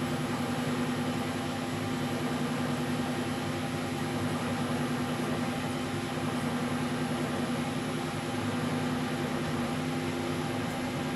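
1972 Weiler Matador SV metal lathe running with a steady hum, spinning the workpiece while a drill bit in the tailstock chuck is fed in to drill the bore.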